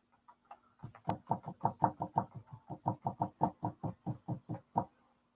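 Quick, even tapping of a paintbrush dabbing dots of paint onto a canvas, about six taps a second, starting about a second in and stopping near the end.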